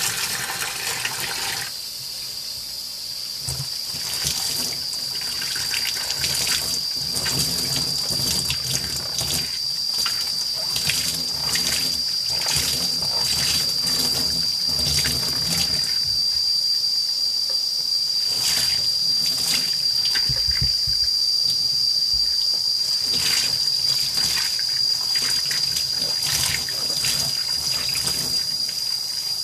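Tap water running from a faucet into a plastic utility sink, splashing as a doll is rinsed under the stream. A steady high whistle from the plumbing sounds throughout.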